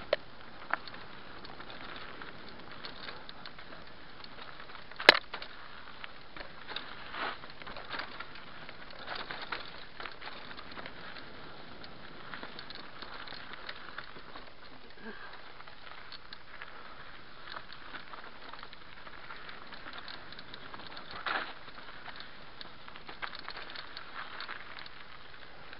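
Mountain bike descending fast on a rocky dirt singletrack: a steady rush of tyre and wind noise, with tyres crackling over loose stones and the bike rattling. Sharp knocks come as it hits rocks, the loudest about five seconds in and another near the end.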